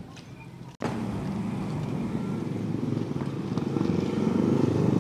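Motorcycle engine running on the street, growing louder over the last couple of seconds. The sound breaks off abruptly about a second in before the engine noise starts.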